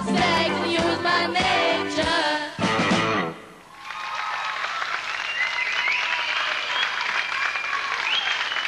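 A pop song with singing and a backing band ends on its final notes about three seconds in, followed by an audience applauding.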